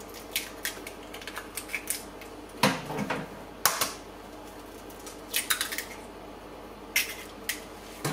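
Eggs being cracked on the rim of a stainless steel Thermomix bowl and broken open: a series of sharp taps and clicks of shell against metal, with a heavier knock about two and a half seconds in.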